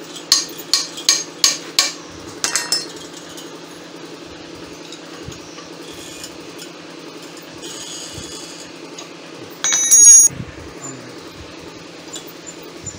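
Spanner clicking on the shaft nut of a cast V-belt pulley: five sharp metallic taps about 0.4 s apart, then a short rattle. About ten seconds in, a louder metallic clank with a brief ringing. A steady low hum runs underneath.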